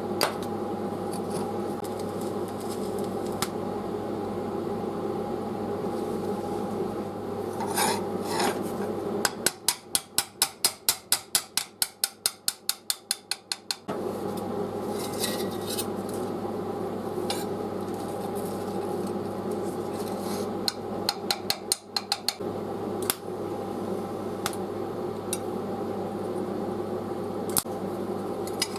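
A steady mechanical hum, broken twice by quick runs of rasping strokes, about four to five a second: a long run of about twenty strokes about a third of the way in and a shorter run about two-thirds in, typical of hand-filing metal.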